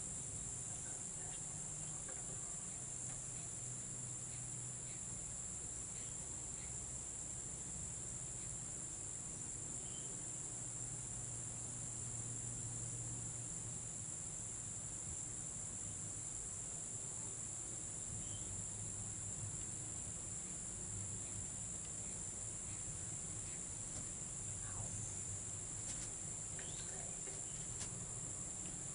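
Steady high-pitched insect chorus, a continuous even drone that never lets up.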